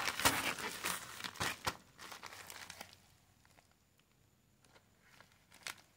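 Plastic courier mailer bag crinkling as it is handled for about three seconds, then near quiet with a short tap near the end.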